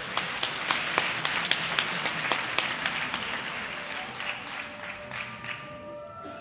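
Theatre audience applauding, with a run of louder claps close by at about four a second; the applause fades in the second half as music comes in.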